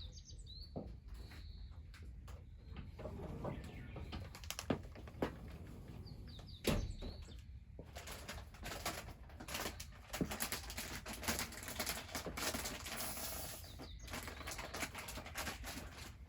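Wood fire crackling with scattered sharp pops, and a denser spell of crackle in the middle; a bird chirps a few times near the start.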